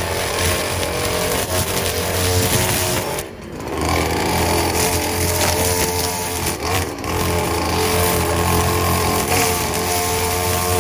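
Gas string trimmer running near full throttle, cutting overgrown grass and weeds. It eases off briefly about three seconds in, then picks back up.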